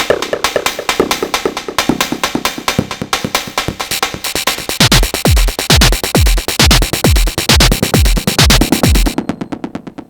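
Sonic Potions LXR-02 digital drum machine playing an improvised techno pattern: a fast, busy run of clicky percussion hits, joined about halfway through by a deep, punchy kick with a falling pitch at about two beats a second. The hi-hats and upper percussion drop out near the end, leaving a thinner beat.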